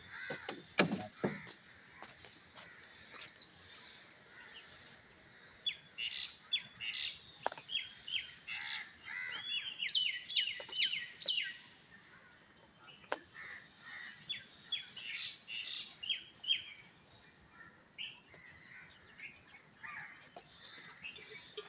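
Small birds chirping and calling in rapid series of short, high notes, busiest through the middle of the stretch.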